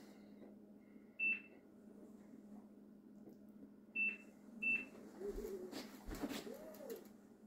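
Digital countertop templater (ProDim ProLiner) giving three short, high electronic beeps as its wand records points along the wall: one about a second in, then two close together around four seconds in. Faint handling rustles and light knocks follow.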